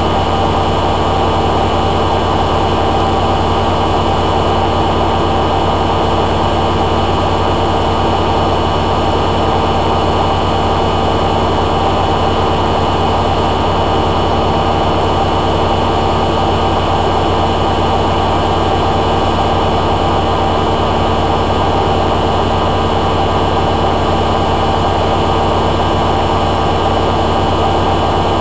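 Hoover A3786 Logic Deluxe washing machine on its final spin, drum and motor running at a steady high speed with a constant hum and whine.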